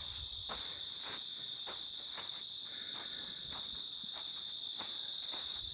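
A chorus of crickets chirring in one steady high-pitched drone, with footsteps on a dirt road about twice a second.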